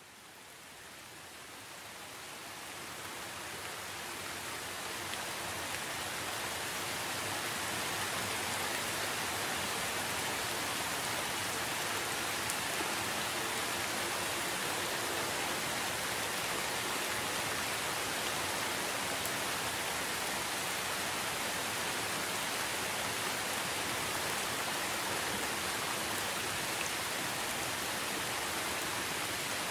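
Steady, heavy rain hiss, fading in over the first several seconds and then holding level.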